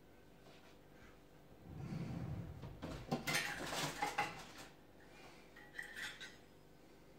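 Dishes and metal utensils being handled: a dull rumble, then a run of clattering clinks and rattles in the middle, and a couple of lighter clinks near the end.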